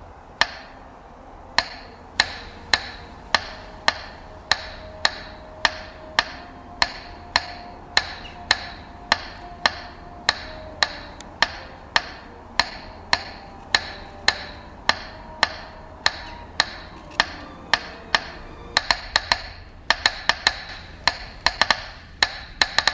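A steady series of sharp knocks, each with a short ring, about one and a half a second, turning faster and uneven with double knocks near the end. A faint held tone sits under them and shifts in pitch now and then.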